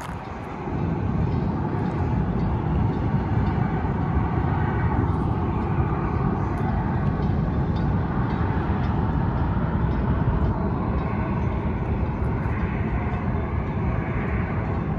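Loud, steady engine rumble that comes up sharply under a second in and holds, with a fainter higher tone that swells and fades twice.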